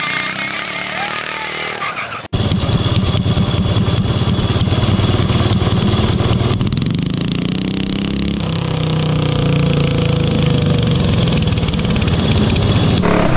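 Small mini bike engine running hard and being revved, its pitch rising and falling. About two seconds in a sudden cut switches to a louder, closer engine sound.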